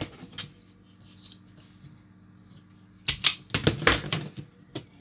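Small parts and tools being handled on a workbench: light ticking at first, then a burst of louder clicks and knocks a little after halfway, over a faint steady hum.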